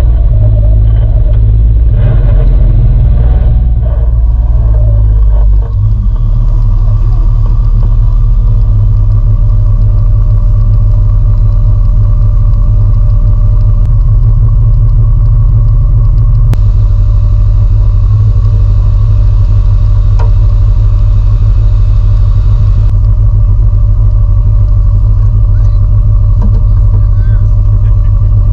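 Side-by-side UTV engine running steadily at idle, heard close up from inside its cab as a constant low rumble.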